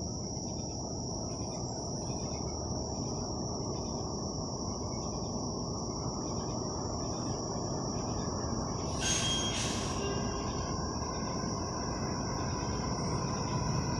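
Low rumble of an approaching Kawasaki 7000-series Metro train, building slowly as it nears. Night insects trill steadily over it with a faint pulsing chirp. Two short hisses come about nine seconds in.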